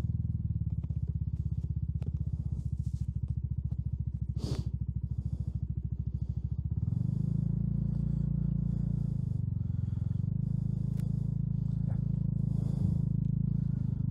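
Yamaha X-Max 250 scooter's single-cylinder four-stroke engine, fitted with an aftermarket exhaust, idling with an even pulse, then rising to a steadier, fuller note about seven seconds in as the scooter pulls away and rides. A short click sounds about four and a half seconds in.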